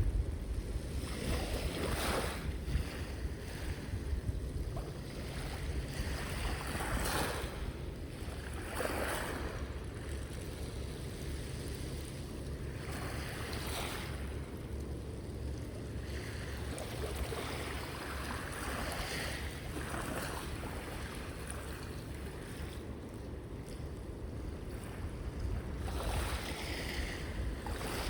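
Sea waves washing in on the shore, several surges that swell and fade, over a steady low rumble of wind on the microphone.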